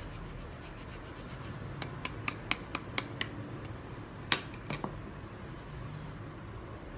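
Hard cheese rasped over a flat hand grater in short even strokes for the first second or so, then a run of about six sharp taps and three more a little later as the grater is handled, over a steady low hum.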